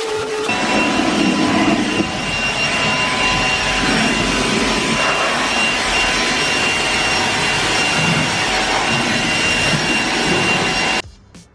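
Leaf blower running steadily: a loud rush of air with a thin high whine, blowing water off a freshly washed car to dry it. It cuts off suddenly near the end.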